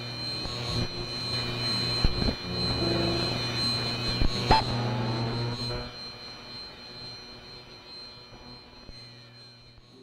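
Radio interference picked up from a DVD burner: a steady electronic whine of several high tones over a low hum, broken by a few sharp crackles, fading away over the second half.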